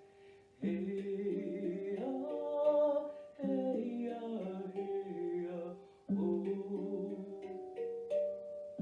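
Handpan played in three short phrases of ringing, clear-pitched notes, each starting suddenly, with wordless singing gliding over them.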